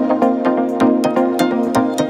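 Electronic dance music with a steady beat and held synth chords.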